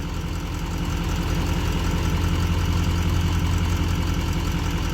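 Pickup truck engine idling with a steady low drone that grows slightly louder over the few seconds.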